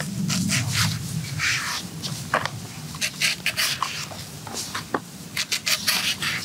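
Kitchen knives and a cleaver cutting and scraping fresh banana-tree stems: a string of short, crisp slicing and stripping sounds as the layers are cut through, over a low steady hum.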